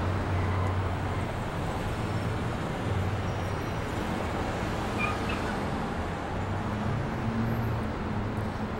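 Steady rumble of distant traffic, with a faint short chirp about five seconds in.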